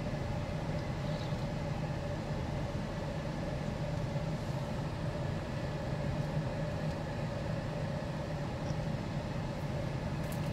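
Car engine idling with a steady, unchanging hum, heard from inside a parked car's cabin.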